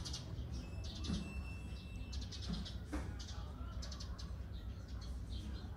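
Small birds chirping in quick repeated bursts over a steady low outdoor rumble.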